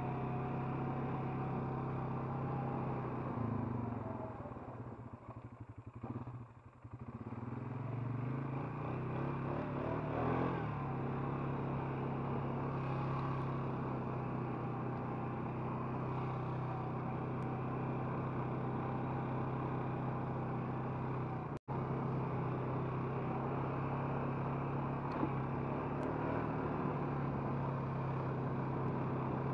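Four-wheeler (ATV) engine running steadily under way. About four seconds in the engine sound drops off, then climbs back with a rising pitch around nine to ten seconds in. The sound cuts out for an instant a little past twenty seconds.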